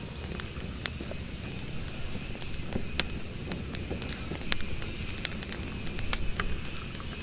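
Open wood fire crackling, with sharp pops at irregular intervals over a low, steady rumble.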